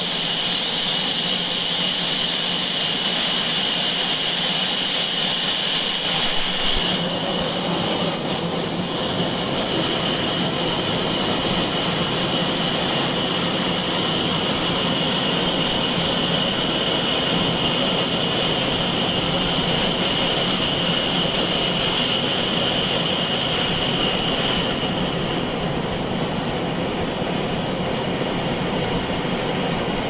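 Band sawmill running and sawing lengthwise through a large log, a steady loud machine noise with a high hiss from the cut that fades about twenty-five seconds in.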